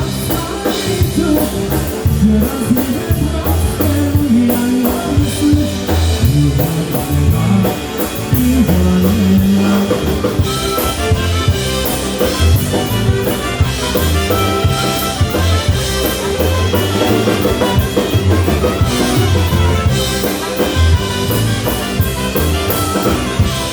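Live polka band playing an oberek, a Polish folk dance, with a drum kit keeping a fast, even beat of cymbal strokes under a moving bass line.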